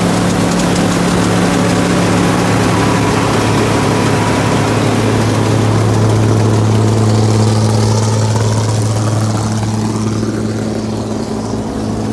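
Massey Ferguson 510 combine running steadily after its cylinder gearbox repair, its engine giving a constant low hum.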